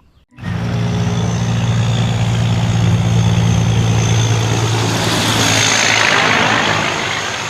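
Heavy truck engine idling steadily, a low hum with a faint high whine above it, starting abruptly about half a second in.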